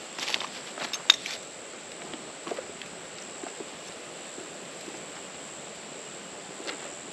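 Steady high-pitched drone of insects in the background, with scattered small clicks and knocks, the sharpest about a second in.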